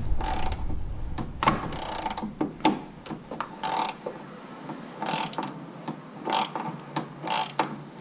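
Ratchet wrench clicking in short runs about a second apart as it turns the alternator's adjustment bolt clockwise, drawing the alternator over to tighten the stretched, squealing alternator and AC belt.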